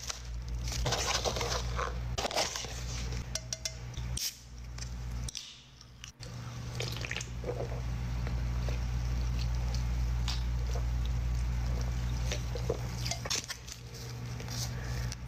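Close-miked mukbang eating sounds: biting and chewing pizza, with scattered crunches and wet smacks over a steady low hum.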